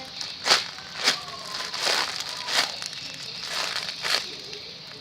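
Plastic crinkling and rustling in about six short bursts as items are handled, the loudest about half a second in.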